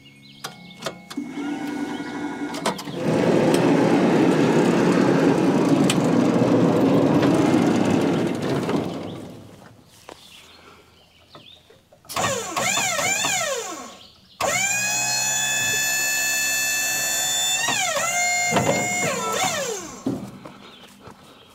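Wood-Mizer LT35HD sawmill machinery after the cut: a loud rushing noise for about six seconds, then an electric drive motor whining, its pitch jogging quickly up and down for about two seconds, then winding up to a steady whine, holding about four seconds and winding down, with a shorter run near the end.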